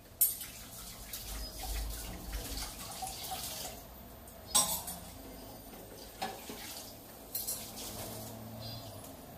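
Dishes being washed at a kitchen sink: tap water running and splashing for the first few seconds, with steel vessels and utensils clinking and clattering. Two sharp clatters stand out, just after the start and about four and a half seconds in, with lighter knocks later.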